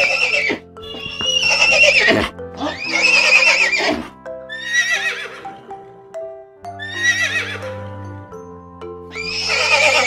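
A horse whinnying again and again, a high wavering neigh about every two seconds, five calls in all. Background music with steady held notes plays underneath.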